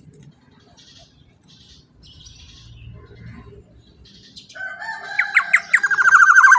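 Black-naped oriole (kepodang) calling: faint scattered chirps at first, then about four seconds in a loud call of a few rising notes running into a rapid trill that slides down at the end.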